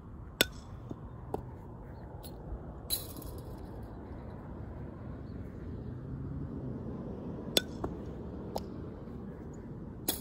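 A steady low outdoor rumble with several sharp clinks at irregular intervals. The two loudest come about half a second in and about seven and a half seconds in.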